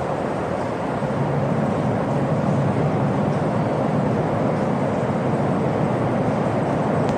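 E5 series Shinkansen train pulling into the station, a steady rushing rumble that grows louder about a second in.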